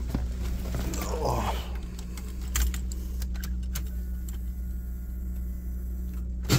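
Keys jangling on a key ring, with a few light clicks, as the ignition key is handled in the steering column of a 1993 Chevrolet Blazer, over a steady low hum.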